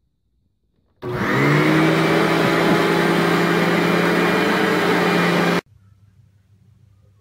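A vacuum cleaner switched on about a second in, its motor spinning up to a loud, steady whine, then cutting off suddenly.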